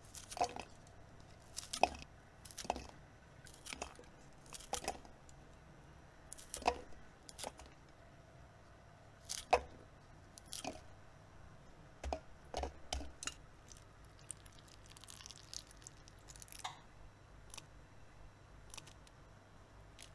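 Kitchen scissors snipping fresh red chillies into short pieces, a sharp snip about every second at an uneven pace, with a few pauses.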